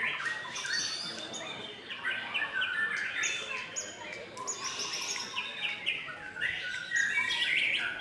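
White-rumped shama singing: a fast, unbroken run of varied whistled and chattering phrases, dense and overlapping, as at a songbird contest with several birds singing at once.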